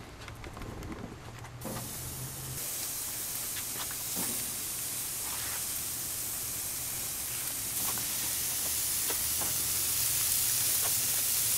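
Raw ribeye steaks sizzling on hot gas-grill grates as they are laid on with tongs. The hiss starts about two seconds in and grows louder as more steaks go down, with scattered pops and crackles.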